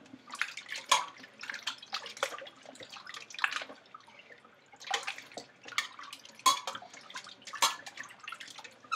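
Chicken drumsticks being washed by hand in a stainless-steel bowl of water: irregular splashing and sloshing as the hands massage the meat, with a short lull about four seconds in.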